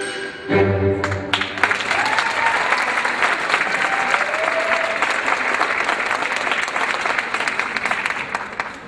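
The music ends on a final chord about a second in, then an audience applauds for several seconds, with a couple of short cheers, dying away near the end.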